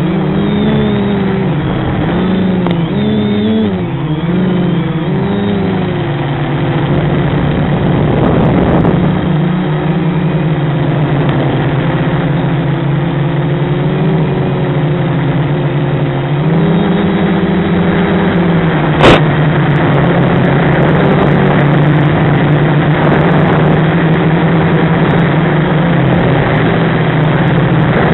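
An FPV quadcopter's SunnySky brushless motors and propellers run at flight throttle. Their pitch swings up and down over the first few seconds, dips briefly later, and otherwise holds steady. A single sharp click comes about two-thirds of the way through.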